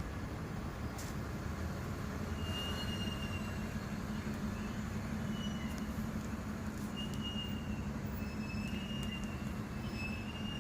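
Garbage truck running with a steady engine rumble, with short high-pitched squeals coming and going several times over it.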